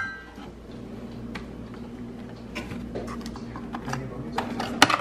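Kitchen handling sounds: a glass mug clinks and rings briefly at the start, then light clicks and taps follow. Near the end comes a sharp click as a coffee pod is loaded into a single-serve coffee maker.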